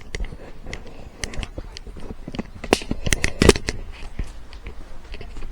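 Irregular sharp plastic clicks and handling noise from a car smart lock remote fob being handled and its buttons pressed, the loudest clicks a little past the middle.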